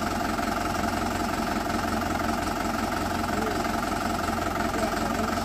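Swaraj 843 tractor's diesel engine running steadily.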